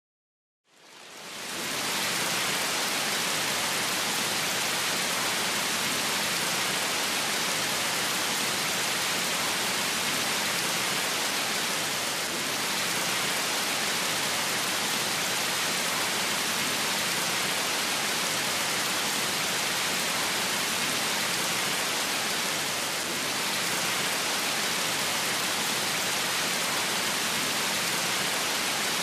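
Water cascading down the steps of an artificial waterfall: a steady rush that fades in about a second in.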